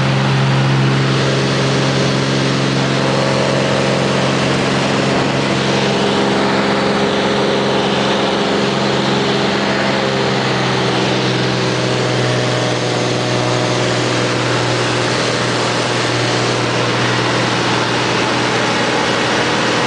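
Cessna 210's six-cylinder piston engine and propeller running steadily at takeoff power during the takeoff roll, heard from inside the cabin.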